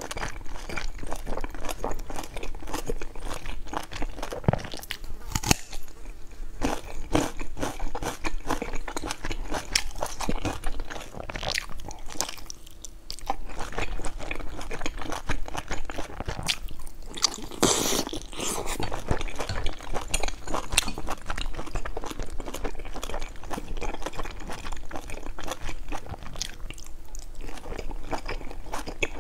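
Close-miked chewing and biting of large stuffed buns, some with a browned pan-fried crust: steady crunching with many quick wet mouth clicks and smacks.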